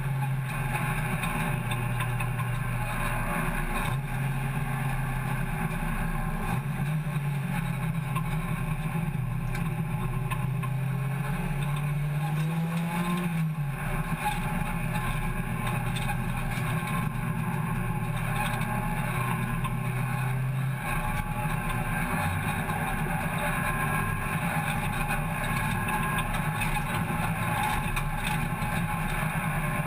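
Hot hatch race car's engine heard from inside the stripped-out cabin, running at steady moderate revs with road and wind noise. The engine note steps up and down with throttle changes, rises briefly about twelve seconds in, then drops lower about twenty-one seconds in.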